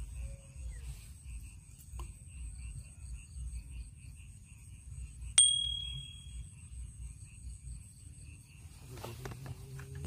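A small metal bell rings once, a bright ding that fades within about a second, about halfway through. Insects chirp steadily in the background over a low wind rumble.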